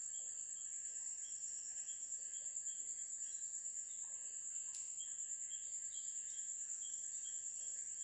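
Faint steady high-pitched chirring with a softer repeated chirp beneath it, insect-like background noise with no speech; a single short tick about halfway through.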